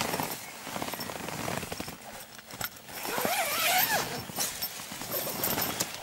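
Nylon hammock and mosquito netting rustling and crackling as a person shifts and climbs about in it. About halfway through, a short wavering squeak-like call rises and falls for under a second, the loudest sound.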